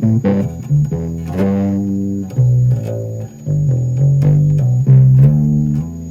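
Electric bass played through a Red Witch Zeus bass fuzz octave pedal into a small practice amp, with the fuzz set to about three o'clock. It plays a run of plucked notes, some of them held for about a second, with a rich, overtone-heavy fuzz tone.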